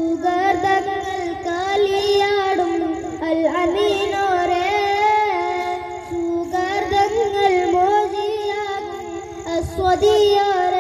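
A boy singing a Malayalam madh (a song in praise of the Prophet) into a microphone. He holds long notes with ornamented turns and glides in pitch, with only brief breaks for breath.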